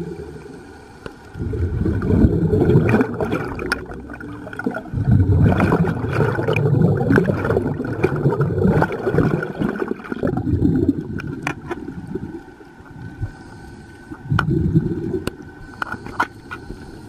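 Muffled underwater bubbling and gurgling heard through a submerged camera, coming in several irregular bursts with quieter gaps and scattered sharp clicks.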